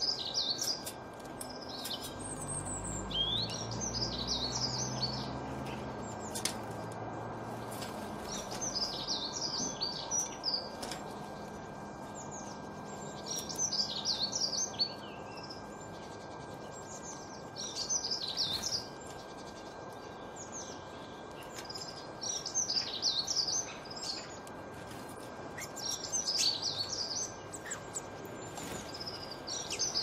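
A garden songbird singing short, fast twittering phrases, one every three or four seconds, over steady background noise. A faint low rumble runs through the first few seconds.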